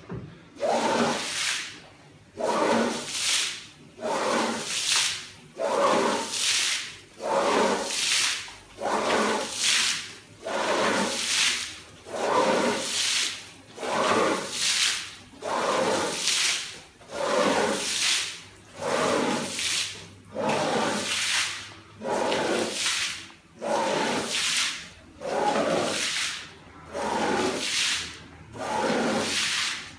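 Long-handled scrubbing tool swept back and forth across a soaked, sudsy wool rug, swishing through the water in steady strokes about one a second.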